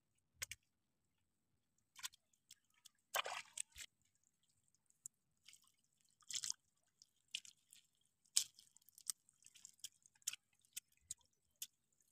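Faint, irregular wet clicks, drips and squishes of small fish and prawns flipping on a wet fine-mesh net as it is handled, with a longer wet rustle about three seconds in and a shorter one near the middle.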